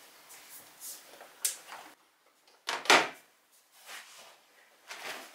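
Household handling noises: a series of short knocks and clicks, with a sharp click about a second and a half in and a louder, longer knock about three seconds in.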